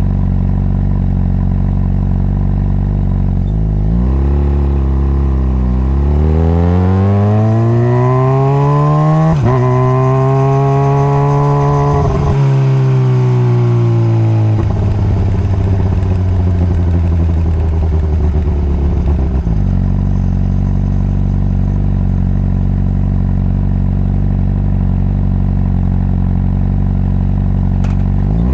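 Honda CBR600RR's inline-four engine idling, then pulling away about four seconds in with rising revs, shifting up twice. It then rolls off the throttle and settles back to a steady idle for the last third.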